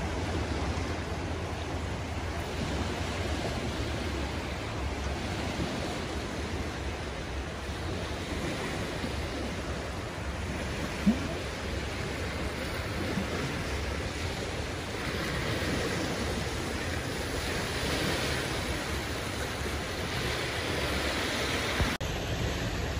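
Small waves washing in on a pebble beach: a steady wash of surf. One short, sharp sound stands out about eleven seconds in.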